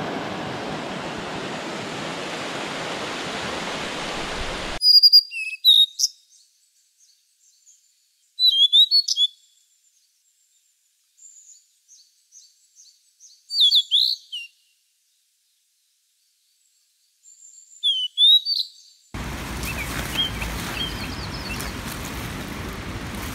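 Rushing creek water, then four short phrases of songbird chirping with dead silence between them; the rushing noise returns near the end with faint chirps in it.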